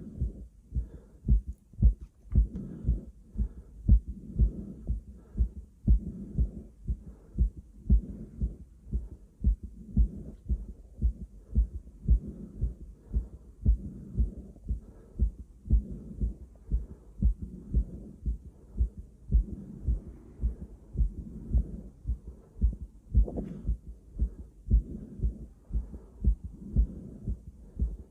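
A person's own heartbeat heard through a stethoscope chestpiece: a steady, regular run of low paired lub-dub thumps, with heavy breathing swelling and fading behind it. A brief scrape comes about 23 seconds in.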